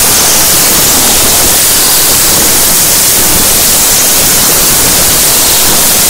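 Very loud, steady white-noise static, an unbroken hiss at full volume across all pitches.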